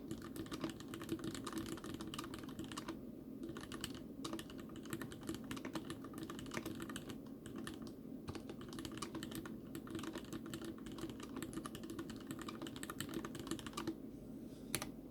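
Typing on a TX87 mechanical keyboard with Cherry MX RGB Red linear switches, their sliders and springs lubed, on a stainless-steel plate: a fast, continuous run of keystrokes. It breaks briefly about three seconds in, and stops near the end, where a single keystroke is heard.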